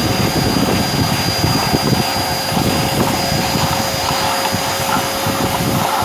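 Vacuum cleaner running with a steady high whine over the rush of air, its hose nozzle sucking dust out of a metal light fixture, with uneven rumbling as the nozzle is moved around inside.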